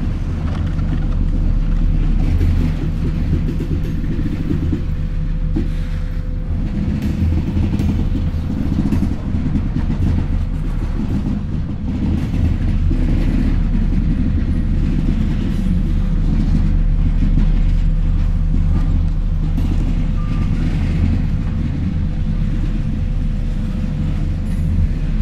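Freight train of covered hopper cars rolling past at close range: a steady low diesel locomotive hum under the rumble of the wheels, with scattered clicks from the wheels on the rail joints.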